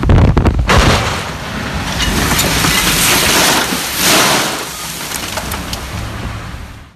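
A heavy low thump at the start, then canola seed pelting the vehicle's windshield and body in a dense rain-like hiss that swells about three and four seconds in and eases off near the end.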